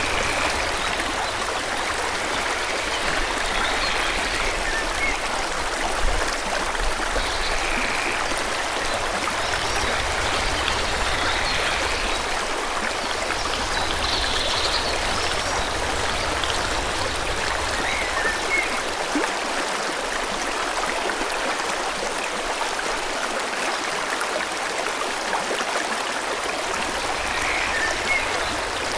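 A forest stream flowing in a steady rush of water, with short, faint bird chirps scattered over it every few seconds.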